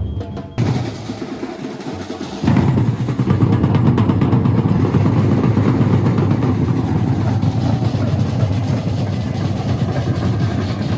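Batucada drum ensemble playing a dense groove at full volume; the sound jumps up under a second in, and the deep surdo bass drums come in heavily about two and a half seconds in.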